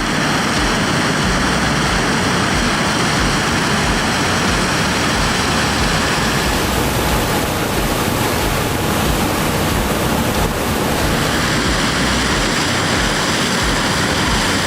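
Fendt Ideal 10 combine harvester running: a loud, steady mechanical noise with faint high whines over it.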